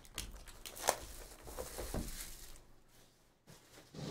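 Cardboard trading-card hobby boxes being handled and slid against each other on a table: irregular rubbing and rustling with a few light knocks, the sharpest about a second in.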